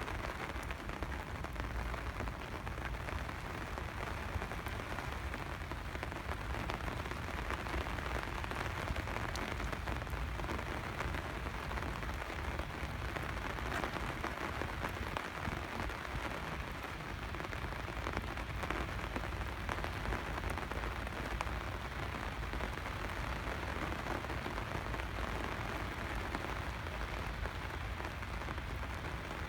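Steady rain falling, with scattered individual drops tapping.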